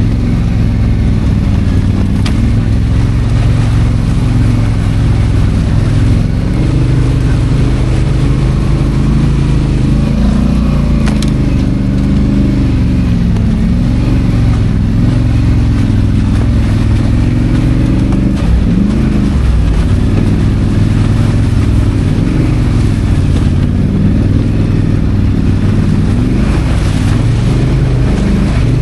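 ATV engine running under way on a rough trail, its pitch rising and falling as the throttle is worked.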